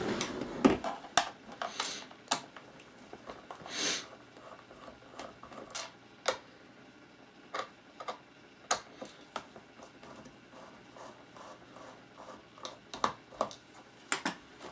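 Scattered small clicks and taps of screws being worked out of the plastic back housing of a Cisco 8865 IP phone and the housing being handled, with a brief scrape about four seconds in.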